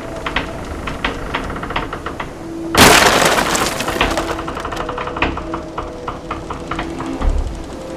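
A sudden loud crash about three seconds in, with breaking and cracking that dies away over a second or so, then scattered knocks and clicks. Sharp clicks come before the crash, and a faint steady hum runs underneath.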